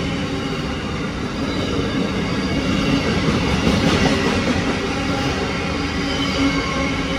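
Container freight train rolling past close by: a steady rumble of wagon wheels on the rails, with thin high squealing tones over it, swelling slightly about four seconds in.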